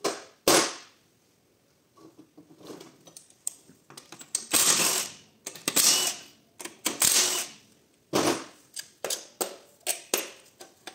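Cordless impact wrench undoing bolts on a CVT gearbox housing in four short bursts of about half a second each, partway through. Sharp metal knocks and clinks of tools and parts come at the start and near the end.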